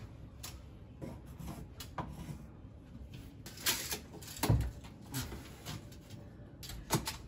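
A steel tape measure being pulled out and held across a ceiling opening: scattered light clicks and knocks of the tape and hands, with a dull thump about four and a half seconds in.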